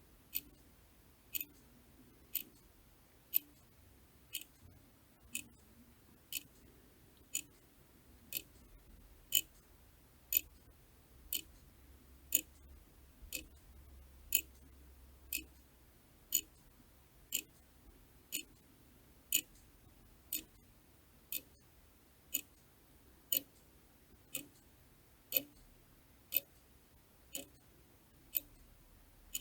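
Clock ticking steadily, about one sharp, high click a second.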